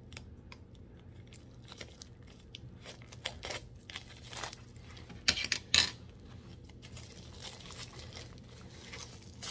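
Plastic mailer bag rustling and crinkling as it is cut open with scissors and pulled apart, with a few louder crackles a little after five seconds in.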